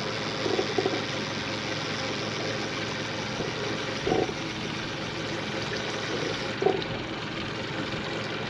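A boat's engine running steadily, under an even rushing noise.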